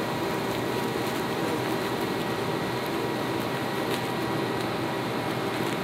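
Steady whir of an electric fan blowing air, with faint steady tones running through it.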